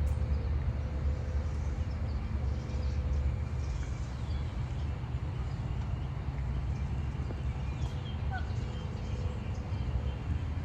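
Faint, scattered bird calls, short high chirps, over a steady low rumble that is the loudest sound throughout.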